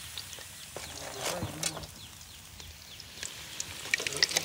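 Fish frying in hot oil in an open wok, a light crackle that turns into dense sizzling near the end as fresh pieces go into the oil. A short voice-like call sounds a little over a second in.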